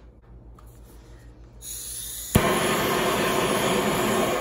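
Blazer butane kitchen torch clicking alight a little over two seconds in, then its flame running with a steady loud hiss.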